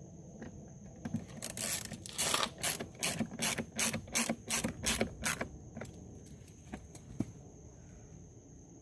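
Hand ratchet or ratcheting screwdriver clicking as a small screw is turned back into a car's interior door panel: a run of sharp clicks about three a second that lasts some four seconds, then a few slower clicks as it snugs up.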